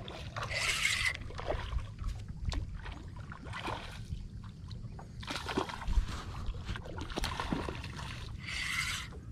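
Water sloshing and splashing around a paddleboard, with short whirring bursts from a spinning reel being cranked as a hooked fish is reeled in, plus scattered clicks.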